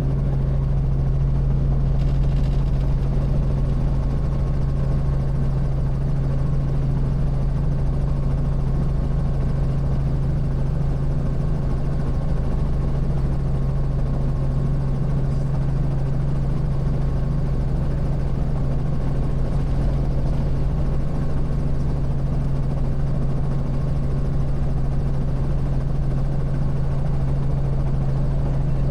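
Robinson R44 Raven I helicopter running steadily, its engine and rotors making a constant low drone.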